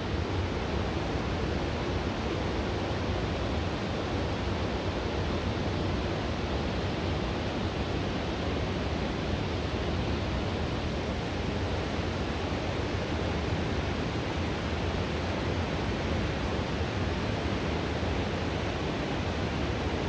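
Steady rushing of a fast mountain stream flowing through a rocky canyon, an even, unbroken hiss of water.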